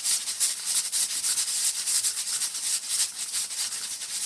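Stovetop pressure cooker's weighted steam valve rattling rapidly and hissing as steam escapes: the cooker is at full pressure.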